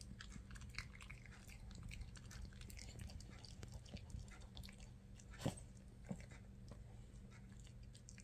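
Small curly-coated dog chewing and gnawing on a dog chew: a run of faint, irregular clicks and crunches, with two sharper clicks a little past halfway.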